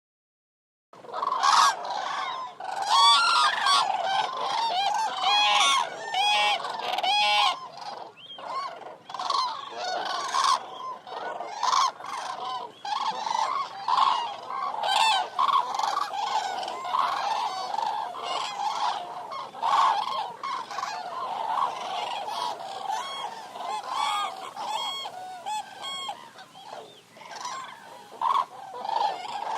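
A flock of Eurasian cranes calling, many loud bugling, trumpeting calls overlapping without a break, starting about a second in.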